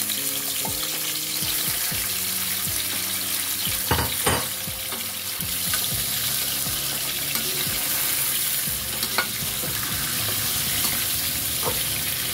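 Raw chicken pieces sizzling in hot oil in a metal karahi, a steady frying hiss. A perforated metal spoon stirs them and now and then knocks and scrapes against the pan, with two sharp knocks about four seconds in.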